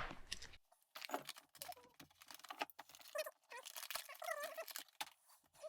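Faint scattered clicks, taps and light squeaky rubbing as a brass-look pendant lamp holder is handled and tried against the fitting hole of an old lampshade.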